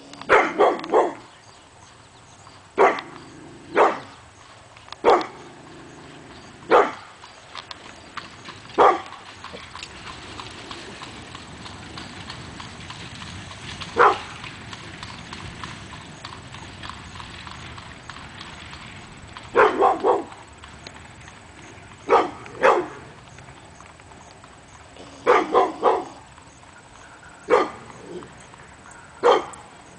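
Pit bull barking in short bouts, single barks and quick runs of two or three, with a long lull in the middle. During the lull a horse and buggy passes on the road, its hooves clip-clopping.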